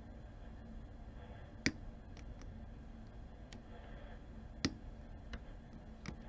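Small sharp metallic clicks of a lock pick working inside a Kwikset SmartKey padlock, sparse and irregular. The two loudest come about one and a half and four and a half seconds in.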